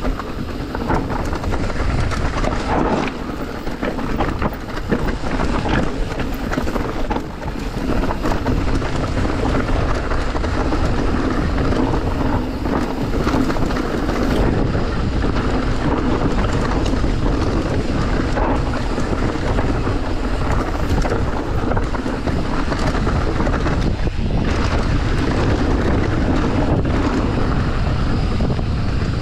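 Wind buffeting the camera microphone as an electric mountain bike rides down a rough trail, with a steady rumble and frequent short knocks and rattles from the bike over the ground.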